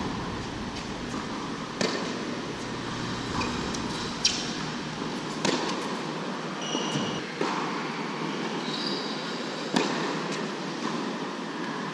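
Tennis rally on an indoor hard court: sharp racquet strikes on the ball and ball bounces every second or two, with a couple of brief high shoe squeaks on the court surface about two-thirds of the way through, over a steady rushing hum of the hall's fans.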